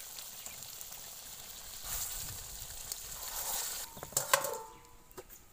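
Chicken curry sizzling in a steel kadai as sliced tomatoes are tipped in, with a sharp metallic clank about four seconds in as a steel plate is set on as a lid, after which the sizzle drops away.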